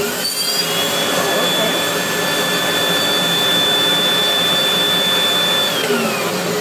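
Motor of a 1984 Hoover Powerglide cylinder vacuum cleaner running: a whine that rises in the first second as it gets up to speed, then holds steady and falls away near the end as it winds down. It runs sounding good, with the top bearing fine.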